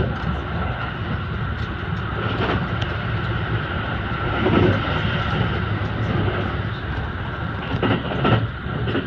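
Haruka airport express train running at speed, heard from inside the carriage: a steady rumble with a high hum held over it. There is a louder swell about halfway through and two short knocks near the end.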